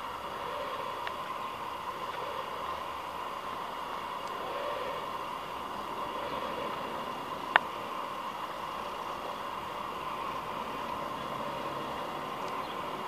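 Steady outdoor background noise with a faint steady hum, broken by one sharp click about seven and a half seconds in.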